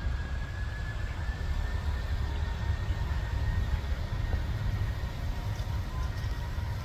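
Distant jet airliner rolling down a wet runway: a low rumble under a steady high engine whine, which has just risen in pitch before levelling off.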